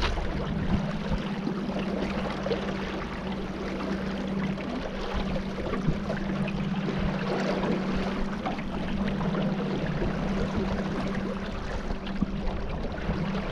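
Boat motor running at a steady speed, a constant low hum, under rushing water and wind noise.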